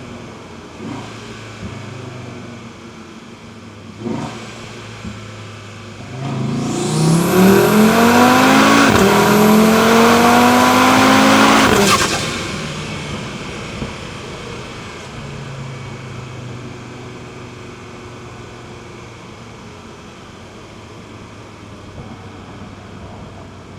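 Audi TT RS's turbocharged five-cylinder engine under a hard acceleration about six seconds in: its pitch rises, drops at an upshift, rises again, then cuts off sharply at lift-off. Before and after, it runs quietly at a steady cruise.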